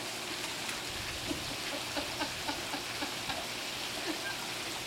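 Pool wall water jets spraying into the pool, a steady sound of falling and splashing water, with a run of small plops through the middle.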